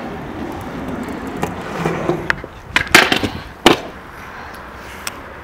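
Skateboard on concrete: a rough rolling rumble, then a handful of sharp clacks, the loudest two about three and almost four seconds in.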